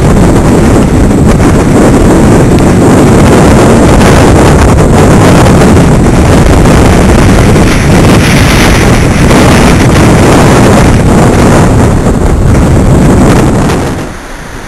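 Strong wind buffeting the microphone on a ferry's open deck at sea, a loud steady roar that drops away sharply about a second before the end.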